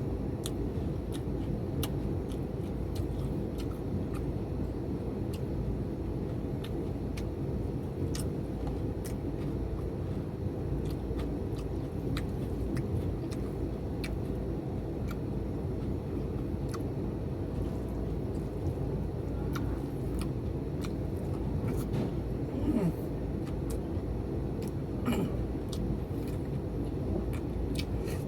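Steady low rumble with many small scattered clicks and crunches, the sounds of someone eating close to the microphone, and two slightly louder clatters near the end.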